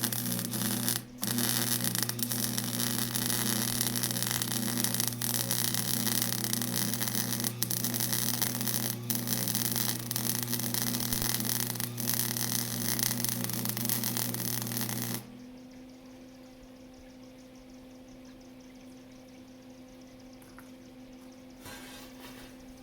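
Arc welding on steel: a loud continuous hiss with a strong electrical buzz, briefly broken about a second in, that stops about fifteen seconds in, leaving a quieter steady hum from the welding machine.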